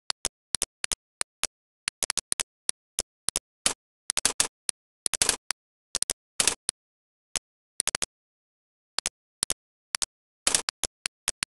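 Computer mouse clicking: irregular sharp clicks, some in quick bunches, with dead silence between them.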